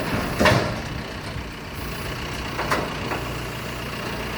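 The diesel engine of a large John Deere machine running steadily, with two sharp knocks, the louder about half a second in and another a little before three seconds in.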